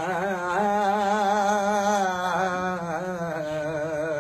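A man singing unaccompanied in Punjabi folk style, holding one long drawn-out note with a wavering vibrato; the pitch steps up a little about half a second in.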